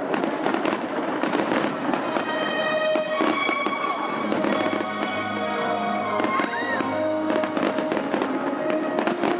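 A fireworks display crackling and banging in a dense, rapid run of pops and reports. Music plays alongside from about two seconds in.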